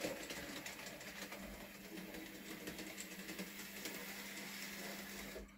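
Bachmann Peter Sam model locomotive running on its track pulling two wagons: a small electric motor hums steadily under a fast, irregular clicking of wheels over the rails and rail joints.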